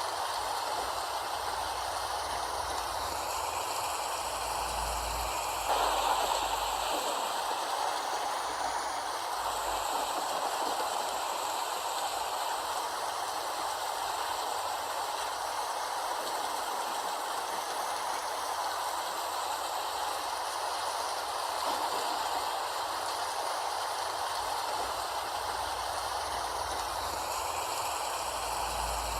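Steady rain falling, an even hiss of many drops with a slight change in texture about six seconds in.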